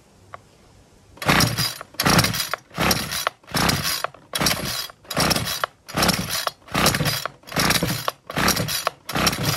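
Recoil pull-starter on a Ryobi multi-tool hedge cutter's small petrol engine, yanked about eleven times in quick succession, roughly one pull every three-quarters of a second. Each pull is a short whirr as the engine turns over, but it never catches. The owner suspects low compression.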